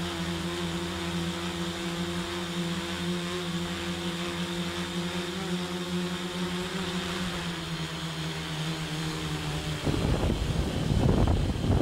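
RC copter's motor and rotors humming at a steady pitch. About ten seconds in the hum drops out and loud, irregular wind buffeting on the microphone takes over.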